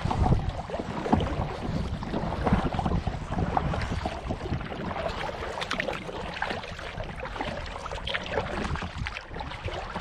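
Kayak paddle strokes: the blades dipping and pulling through the water with irregular splashes and drips, over low wind noise on the microphone.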